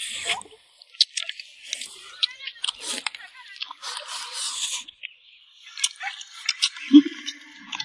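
Two people eating spicy braised pork ribs and rice with chopsticks at close range: wet chewing, sucking and gnawing on the rib bones, with sharp clicks of chopsticks on the bowls. A brief low hum comes near the end.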